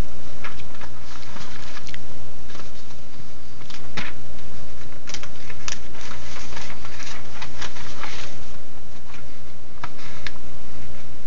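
Newspaper sale circulars rustling and crackling as the pages are turned and pawed at, in irregular crisp crinkles over a steady low hum.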